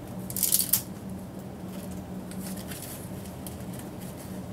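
Rolled paper poster rustling as it is handled and picked at, with a short sharp crinkle about half a second in, then soft, scattered rustles.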